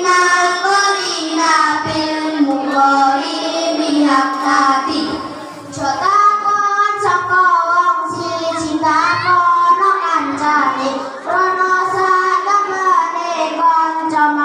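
Children singing a melodic chant into microphones, with long held notes and a short break about five and a half seconds in.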